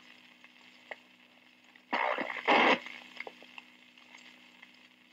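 Old police radio channel recording from a Dictabelt, played back at half speed: a steady low hum and hiss of the open channel, broken about two seconds in by two short, loud bursts of garbled transmission.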